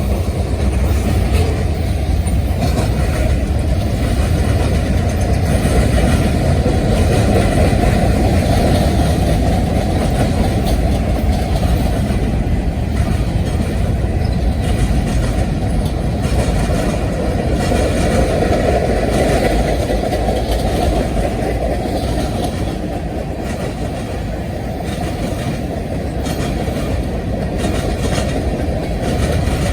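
Freight train cars rolling past close by: a steady, loud noise of steel wheels on the rails, easing slightly near the end.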